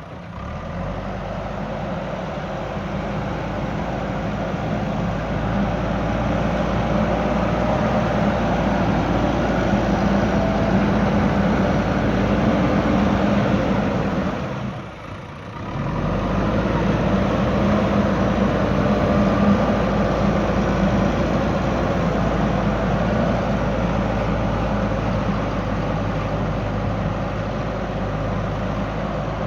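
JCB backhoe loader's diesel engine running steadily as the machine works. The sound drops away briefly about halfway through, then comes back at the same level.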